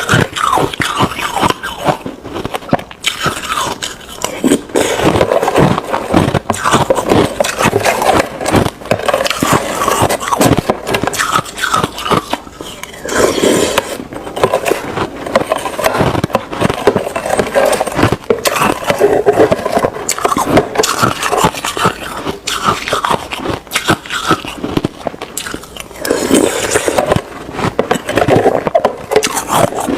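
Ice being bitten and chewed close to the microphone: loud, rapid, irregular crunches and cracks, one after another with short gaps.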